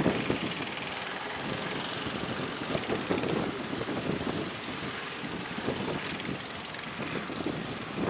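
Big surf breaking on the shore: a steady rushing noise, with wind gusting on the microphone.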